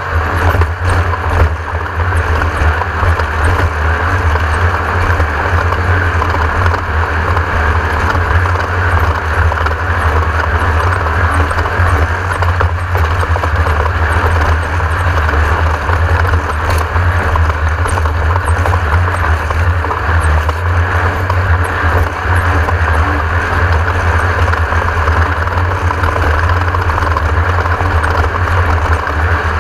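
Class 1600 off-road race car's air-cooled Volkswagen engine running hard and steady at speed, a loud constant drone with a rushing din of the car over rough ground.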